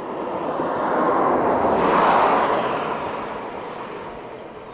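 A vehicle passing close by on the road: its tyre and engine noise swells, is loudest about two seconds in, then fades away.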